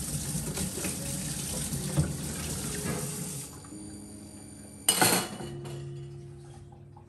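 Kitchen tap running into a stainless steel sink, stopping about three and a half seconds in. About five seconds in there is a short, loud clatter of wire and glassware at the stainless steel dish rack.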